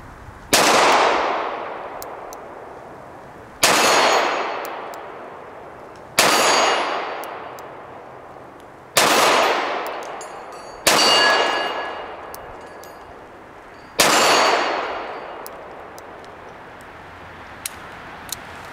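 Kimber K6s snub-nosed .357 revolver firing six shots, spaced about two to three seconds apart, each fading away over a couple of seconds. After most shots comes the faint metallic ring of a struck 12-inch steel gong; one of the six shots missed the gong.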